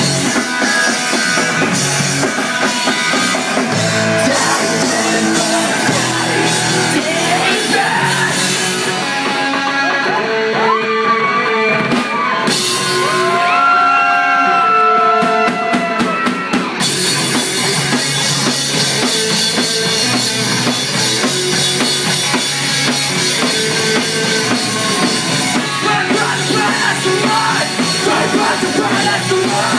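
Live rock band playing loudly. From about nine seconds in, the cymbals drop away for several seconds while a pitched lead part slides and bends, then the full band comes back in.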